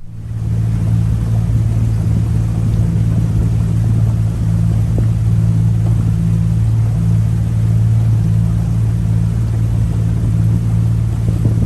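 A motor running steadily at cruising speed: a low, even drone with a rushing noise over it, starting abruptly at the outset.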